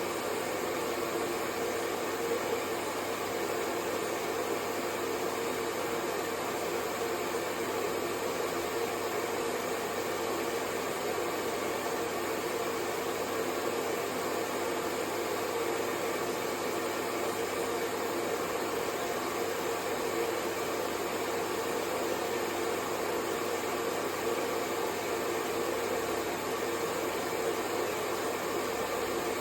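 Hair dryer blowing, a steady, unchanging whoosh of motor and airflow noise used as white noise to lull a baby to sleep.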